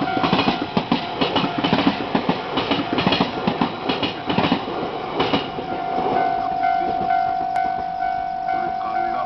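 Jōban Line local train passing over a level crossing, its wheels clattering over the rail joints for about five seconds. The crossing's warning bell rings steadily throughout and carries on alone, in even repeating strokes, after the train has gone by.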